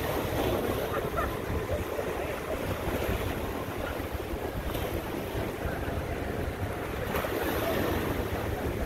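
Choppy harbour water washing and splashing against shoreline rocks, with wind buffeting the microphone.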